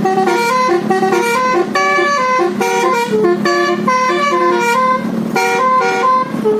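Telolet basuri musical air horn, a set of vehicle horn trumpets, playing a fast melody: a quick run of short, stepped notes with no break.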